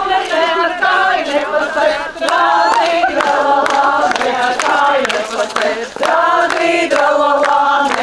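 A group of mostly women's voices singing a traditional Latvian round-dance song (rotaļa) together in one melody while dancing in a ring, with hand claps in time.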